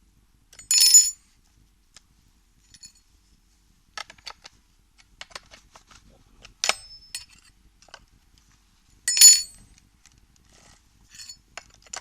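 Small metal parts clinking and rattling in two short ringing bursts, about a second in and again near the nine-second mark, with scattered light clicks of handling in between.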